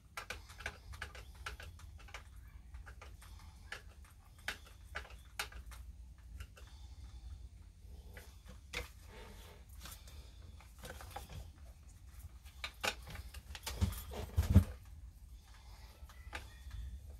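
Small clicks, taps and handling noises of a screwdriver and parts being worked on a Stihl 026 chainsaw, with a few louder knocks about fourteen seconds in, over a faint steady low hum.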